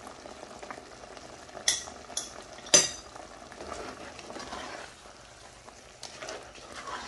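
A spoon stirring softened tomatoes in a metal karahi, clinking against the pan a few times, sharpest about three seconds in, over a soft, steady sizzle of the simmering tomatoes.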